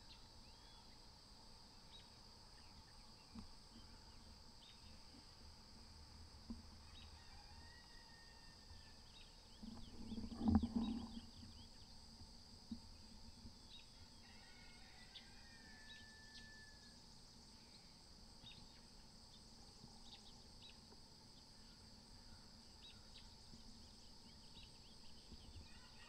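Faint early-morning field ambience: a steady high drone of insects with scattered bird chirps and a few whistled calls. One brief, louder low call or sound about ten seconds in stands out.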